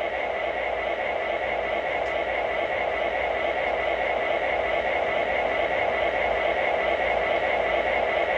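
Electronic diesel engine sound from a 1994 Lionel O-gauge diesel locomotive's sound system: a steady hissing rumble that slowly gets louder as power is raised. The locomotive stays stalled under power, because its rear motor is seized.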